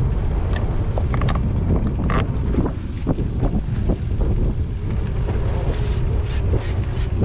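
Wind buffeting the microphone on an open boat on choppy water, a steady low rumble, with a few short clicks and knocks about a second in and a quick run of them near the end.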